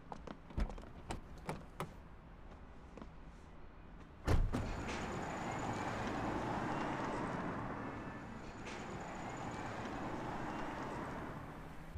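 Footsteps, then a car door shutting with a thump about four seconds in, followed by a Tesla Model S electric saloon driving off and past: a rush of tyre and road noise that swells and fades.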